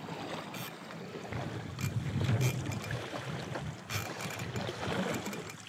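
Water rushing and splashing along the hull of a plastic sit-on-top fishing kayak as it is towed at speed by a hooked striped marlin, with occasional sharper splashes and wind on the microphone.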